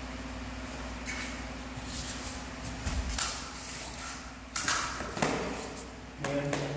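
Small-sword bout: scuffing footwork and several sharp clicks of the blades meeting, over a steady background hum. A short vocal call comes near the end.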